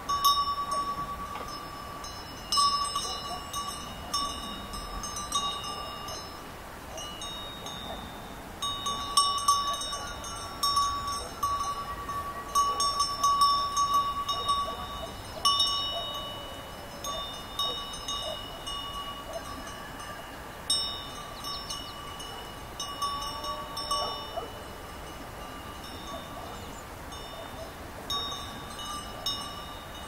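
Sheep bells clanking and ringing in irregular bursts as the sheep move and feed, the jangles coming in clusters that are busiest in the middle and thin out towards the end.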